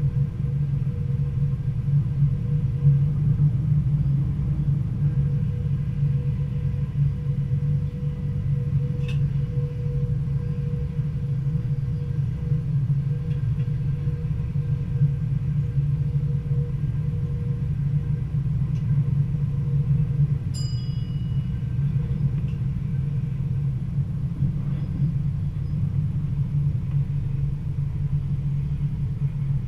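Stadler GTW diesel-electric multiple unit running along the line, a steady low rumble of the train under way with a steady hum over it. Two short high squeaks come through, about a third of the way in and again about two-thirds in.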